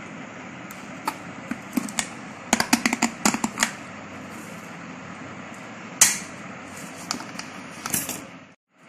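Clicks and light knocks of a thin plastic soft-drink bottle being handled on a tabletop. There is a quick run of clicks about three seconds in and one sharper knock about six seconds in, over a steady background hiss.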